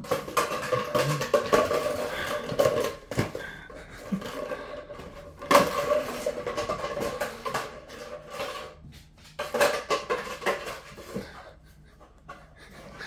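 A paper towel roll rolling, scraping and knocking across a vinyl kitchen floor as two kittens bat and chase it, mixed with the kittens' paws scrabbling on the floor. The clatter comes in several bursts and dies down near the end.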